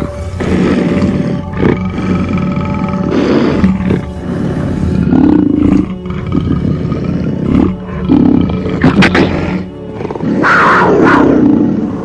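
Big cat roaring several times in a row, the longest roar near the end, over background music.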